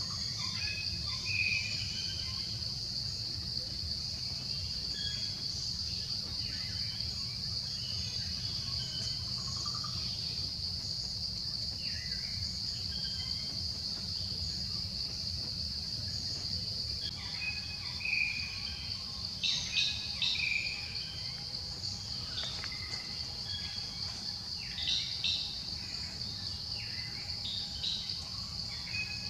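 Insects drone steadily at one high, even pitch, with scattered short bird chirps over it that grow busier and louder in the second half.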